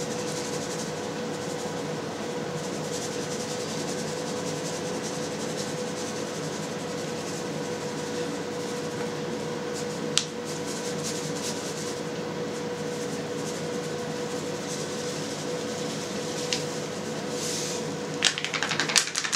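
A steady machine hum with a constant tone, under faint rustling as dry yeast is shaken from a paper packet over a bucket of molasses wash. There is a single click about ten seconds in, and the hum stops shortly before the end.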